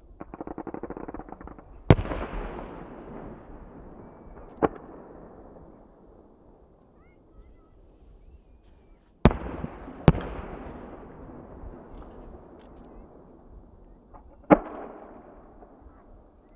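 Aerial fireworks bursting: a fast crackle in the first couple of seconds, then a loud boom, a smaller one, two loud booms close together in the middle, and one more near the end, the big ones each trailing off in a long echoing rumble.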